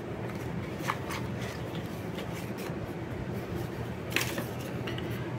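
A cardboard tuck box being opened and a small deck of thin paper cards slid out by hand: quiet rustling and scraping, with two light clicks, one about a second in and another near the four-second mark.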